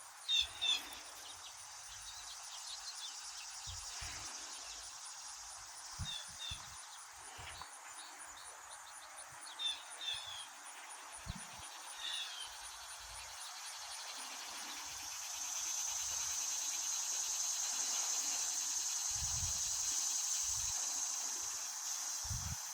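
Outdoor insect chorus: a steady high buzzing trill that swells louder from about two-thirds of the way through. A few short bird chirps come and go in the first half.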